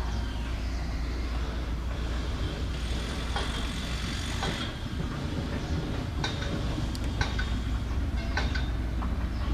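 Heavy machinery running with a steady low rumble, with short sharp clicks and squeals scattered through it, more of them in the second half.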